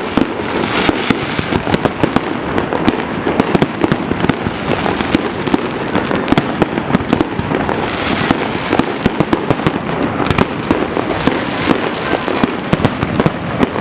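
Fireworks display: a dense, unbroken barrage of rapid, overlapping bangs from bursting shells.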